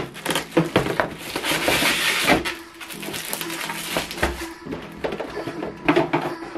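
Cardboard packaging and polystyrene foam end caps rubbing, creaking and knocking as a plastic-wrapped flatbed scanner is slid out of its box and set down on a table. There is a burst of crinkly rustling about two seconds in, and a few sharp knocks near the end.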